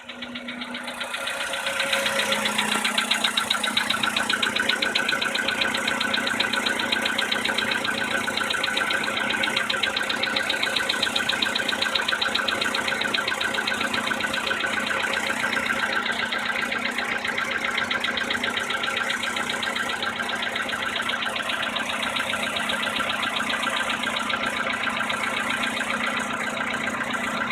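VW Polo sedan's 1.6-litre four-cylinder petrol engine running cold with a fast, even knock over the engine sound, louder after the first two seconds. It is a cold-engine knock that was cured by replacing the cylinder head and piston group under the factory warranty.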